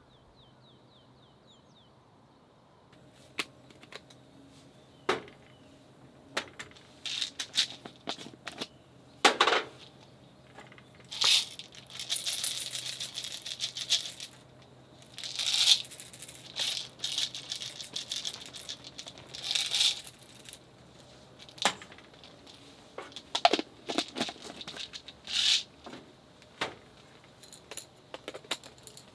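Small handling noises of camp cooking gear and packaging: scattered clicks, light knocks and rattles, with a few seconds of crinkling and rustling near the middle.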